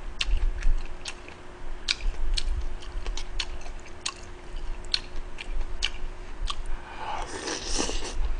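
Close-miked chewing and sharp wet mouth clicks of a person eating udon noodles. Near the end comes a longer, louder slurp as soup is sipped from a spoon.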